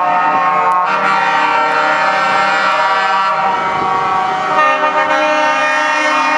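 Truck air horns sounding continuously, several pitches overlapping in a held chord that shifts a few times as different horns join in or drop out.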